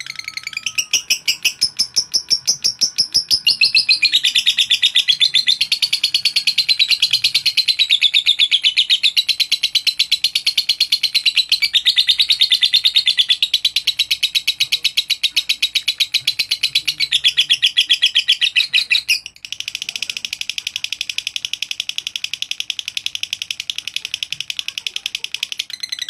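Masked lovebird ngekek: one long, very fast chattering trill that runs on almost without pause. It breaks off briefly about 19 seconds in, then carries on a little quieter.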